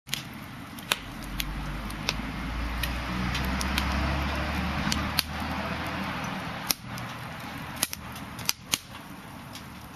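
Wood fire crackling: sharp, irregular pops and snaps over a steady hiss and low rumble of burning.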